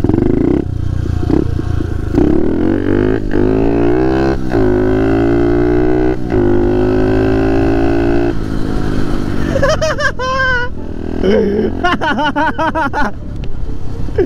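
Pit bike's small single-cylinder engine revving hard under throttle, its pitch climbing for a couple of seconds, then holding high for about four seconds before it drops away. Near the end a wavering sound rises and falls over it.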